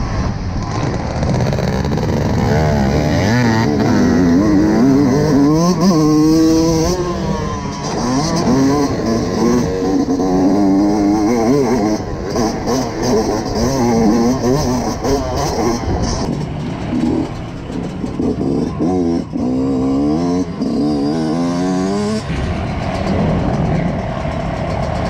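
Motocross dirt bike engine heard from on the bike, revs climbing and dropping again and again as the rider accelerates, shifts and backs off around the track. Near the end the engine sound falls away.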